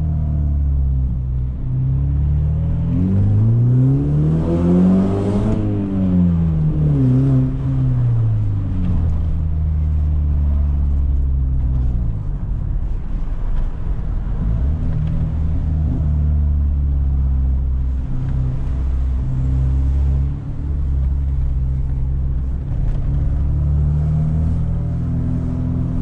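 BMW E46 320i straight-six engine through a loud exhaust, under way. A few seconds in, the pitch climbs as the car accelerates, then slides back down as it slows. After that it holds a steady low drone.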